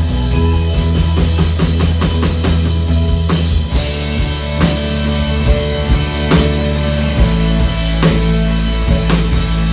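Live instrumental rock from an electric guitar, an electric bass and a drum kit playing together. About three and a half seconds in, the drumming changes from quick, busy strokes to heavier hits a little under a second apart.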